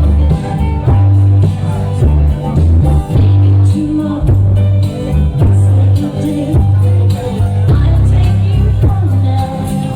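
Loud music with singing over a heavy bass line that changes note every second or so.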